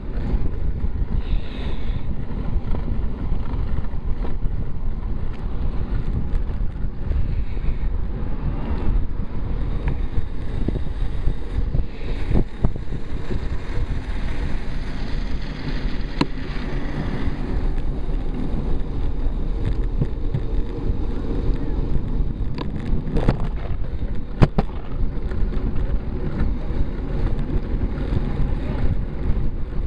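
Wind buffeting the microphone of a bicycle-mounted camera moving at about 15 mph: a steady low rumble, with a few sharp knocks in the second half.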